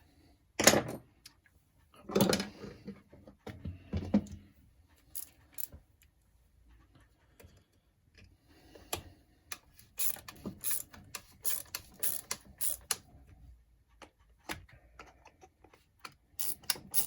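Hand tools working on an RC car's chassis: a few sharp knocks at first, then after a pause runs of quick clicking as screws are driven in.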